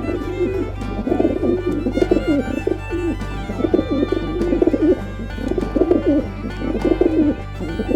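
Pigeons cooing in repeated low, warbling phrases over background music.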